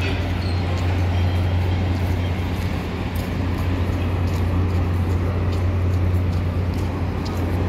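Street traffic ambience dominated by a steady low hum of idling vehicle engines.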